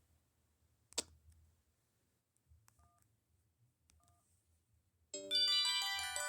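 Samsung SGH-A707 cell phone: a soft click, then two short two-note keypad beeps like touch-tone dialing, then about five seconds in the next ringtone starts, a bright melody of many ringing notes.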